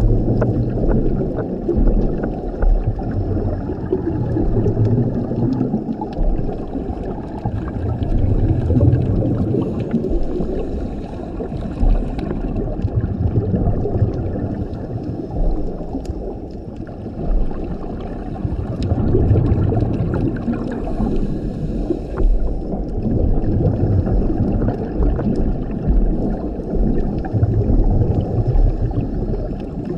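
Scuba diver breathing through a regulator underwater: a steady muffled wash with the rumble of exhaled bubbles coming in bursts every few seconds.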